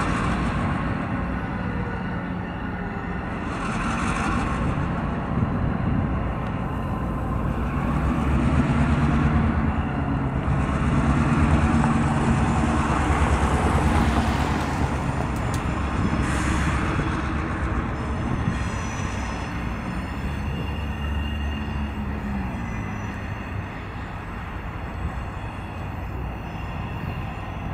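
CSX diesel locomotive's engine running with a steady low drone as it shoves a track geometry train past, with wheel-on-rail noise; it grows louder about a third of the way in and then fades as the train moves away.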